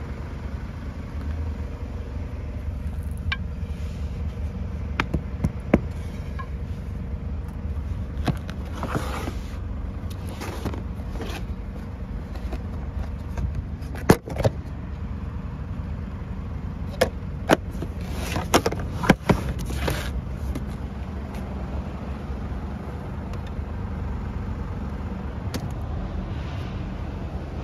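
The Nissan ZD30DD 3.0-litre diesel engine idling steadily, with scattered sharp clicks and knocks over it as the van's interior panels and cabinet fittings are handled. The loudest knocks come about halfway through and a few seconds later.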